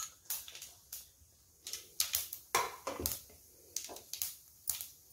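Hands crumbling leftover steamed rice balls in a steel plate: irregular light clicks and taps, a few a second, loudest two to three seconds in.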